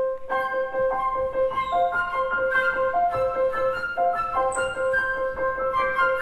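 Piano playing a melody over a steadily repeated high note, starting suddenly at the outset.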